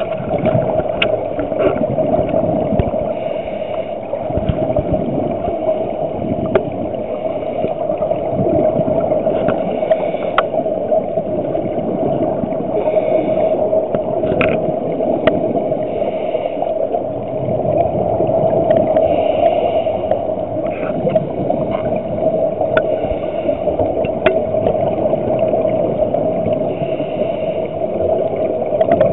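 Muffled underwater ambience picked up by a diver's camera: a steady hum with scattered sharp clicks and faint recurring hissy rushes.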